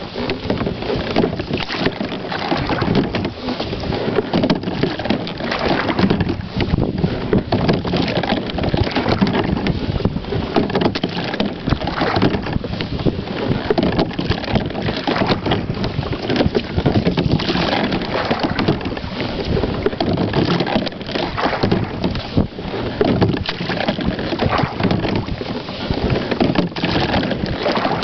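Slide-seat rowing boat under way: a steady rushing noise of wind over the microphone and water moving along the hull.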